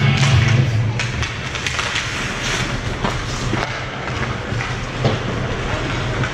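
Ice hockey play: skate blades scraping on the ice with scattered sharp knocks of sticks and puck, after rink music stops about a second in.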